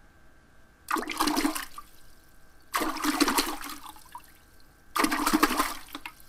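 Three rushing, splash-like sound effects about two seconds apart, each starting suddenly and fading over about a second, one for each title word popping onto the screen.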